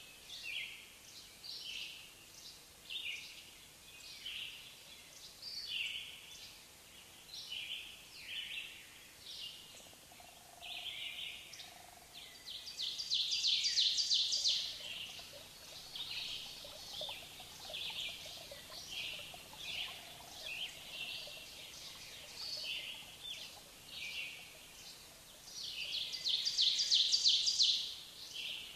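Birds chirping in a woodland ambience: short high calls repeat about once a second, with two louder, rapid trills, one about halfway through and one near the end.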